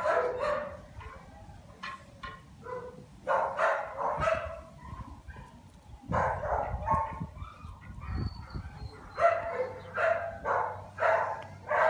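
A dog barking in several bursts of short barks, with pauses between the bursts.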